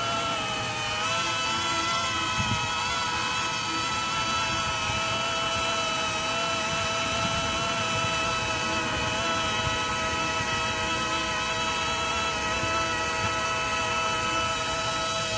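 Quadcopter's brushless motors and propellers whining steadily as it hovers in place, several pitches sounding together. The pitch dips briefly about a second in, then settles and holds.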